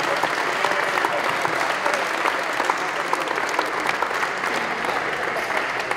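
A large group applauding, many hands clapping steadily.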